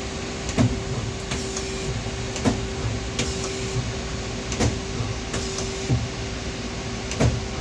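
Steady mechanical hum with a sharp click or knock every one to two seconds, about five in all.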